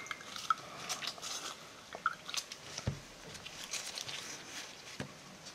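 Faint squishing and small scattered clicks of wet, dyed cotton lace being squeezed and pulled by gloved hands.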